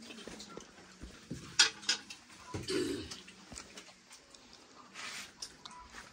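Scattered clinks and knocks of metal dishes and utensils, the sharpest about a second and a half in, with a short low vocal sound near the three-second mark.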